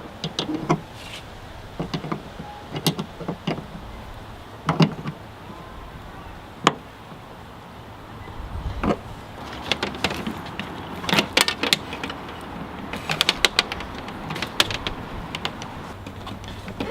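Irregular clicks, knocks and light rattles of hands working a coax cable and NMO antenna mount into place on a pickup, thickest in a cluster of quick clicks near the end.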